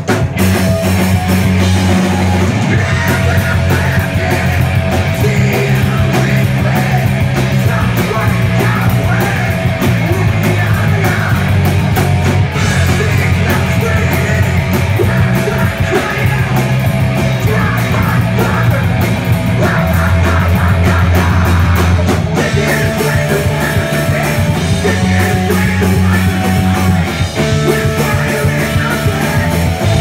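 A punk rock band playing loud and live, with electric guitar, bass guitar and a drum kit together, recorded on a phone's microphone.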